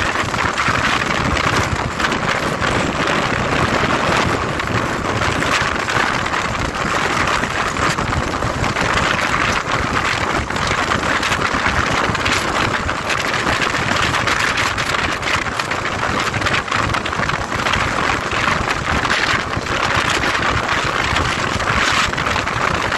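Wind rushing over the microphone of a KTM motorcycle riding at a steady cruising speed, with the engine running underneath.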